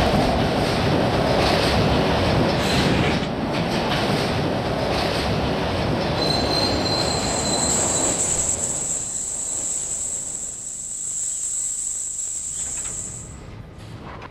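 A train running past, loud at first, then fading. From about halfway a steady high-pitched wheel squeal holds for several seconds before it stops near the end.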